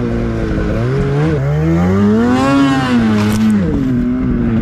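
Polaris 850 Patriot two-stroke snowmobile engine breathing through a Sled Shed Cooker Thing silencer, running low, then revving up for about two seconds to a peak and dropping back near the end.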